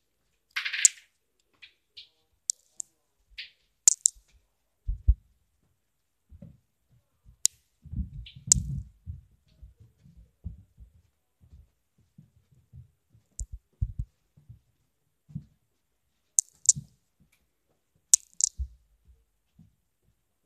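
Soft, irregular footstep thuds on a wooden floor and stairs, with scattered sharp clicks and a short rustle near the start.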